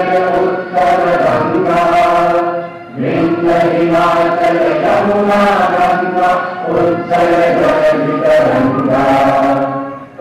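A children's choir chanting Sanskrit verses in unison to a simple melody, with a short break for breath about three seconds in.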